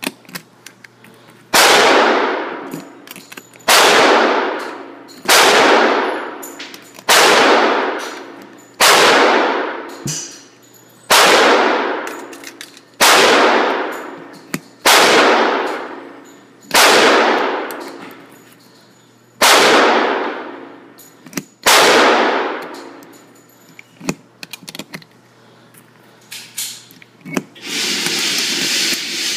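Eleven gunshots fired one at a time, roughly two seconds apart, each followed by a long echo off the walls of the indoor range. Near the end a steady rushing noise comes up.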